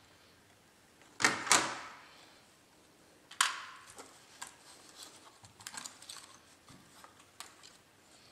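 Knocks and clatter of a laptop motherboard and its casing being handled and set down: two sharp knocks about a second in, another with a short ring a few seconds in, then light plastic and metal clicks.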